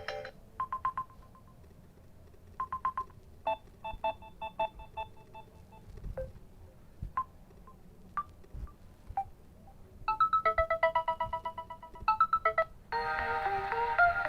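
Samsung Galaxy A01 Core playing its stock notification tones one after another, each a short electronic chime pattern with a pause between. Some are quick runs of bright chimes, one is a few single blips about a second apart. A fuller ringtone melody starts about a second before the end.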